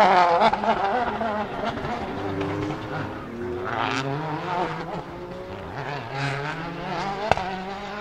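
Citroën DS3 WRC's 1.6-litre turbocharged four-cylinder rally engine accelerating hard out of a corner, its pitch climbing and dropping back with each gear change and fading as the car pulls away. A single sharp crack about seven seconds in.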